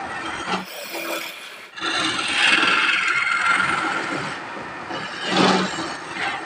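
Wood lathe turning a wooden spindle while a hand-held turning chisel cuts into it, scraping off shavings. The cutting drops away briefly about a second in, then comes back loud, with another short, loud cut near the end.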